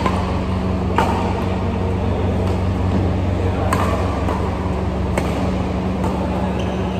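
Badminton rackets smacking a shuttlecock in a rally, three or four sharp hits a second or two apart, over the steady hum of the hall's air coolers.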